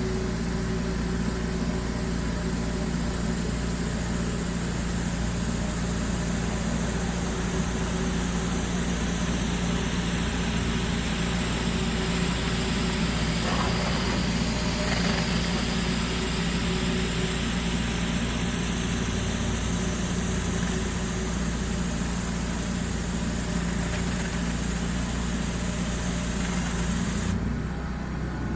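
Gas-engine pressure washer running steadily, with a constant spray hiss over the engine's drone. The hiss cuts off about a second before the end while the engine keeps running.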